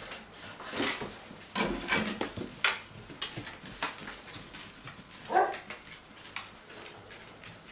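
Basset Artésien Normand puppies whimpering with a few short yips, several separate brief cries, the clearest about five seconds in.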